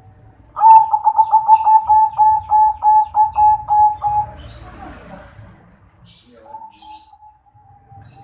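Zebra dove (perkutut), a crossbred local and Bangkok bird, cooing: a loud, fast run of short coos at about four a second, spaced out a little toward the end and lasting about three and a half seconds. A softer, long drawn-out coo follows near the end, with faint high chirps of small birds behind.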